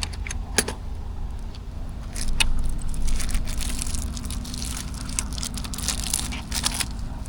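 Plastic storage bags being handled and packed, with irregular crinkling and crackling that is busiest a couple of seconds in, over a steady low rumble.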